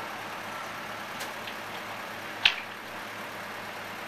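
Steady hum of an idling engine, with a single sharp clank about halfway through from the steel framing work on the beams, and a fainter click a second before it.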